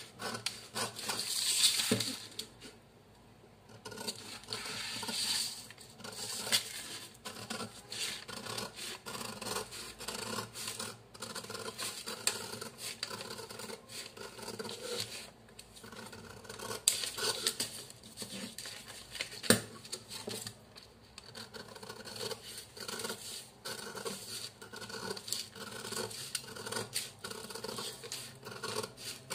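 Long-bladed scissors cutting through brown kraft pattern paper: a run of repeated snips with the paper scraping and rustling. There is a short pause a couple of seconds in and one sharp click about two-thirds of the way through.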